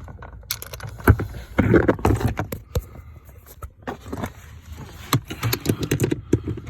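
Irregular metallic clinks, taps and scrapes from hand tools and pedal-assembly parts being handled and fitted under a truck's dashboard.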